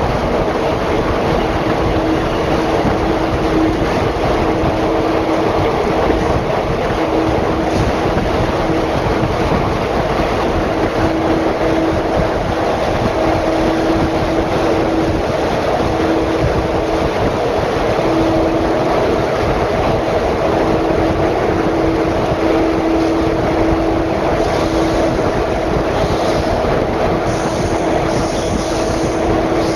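JR Kyushu Kagoshima Line train running at speed through a tunnel, heard through an open window: a loud, steady rumble of wheels and air with a steady hum underneath. Faint high squeals come in near the end.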